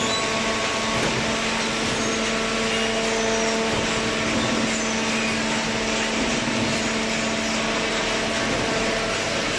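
Hydraulic waste-paper baler running, a steady machine hum at a few fixed pitches over a constant broad mechanical noise.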